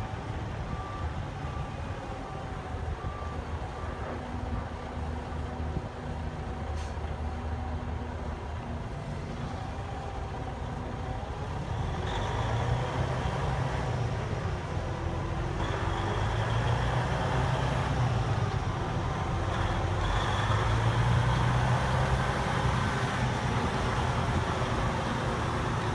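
2009 Freightliner Cascadia semi tractor's diesel engine running as the truck is manoeuvred, with its reversing alarm beeping about once a second for the first few seconds. From about halfway the engine grows louder, its pitch rising and falling as the truck pulls forward and slows.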